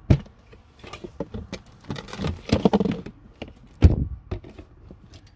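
Handling and rummaging noises as things are taken out and moved about: a string of knocks, clicks and rustles. There is a sharp knock at the start, a busy stretch of clatter around two to three seconds in, and the loudest knock just before four seconds.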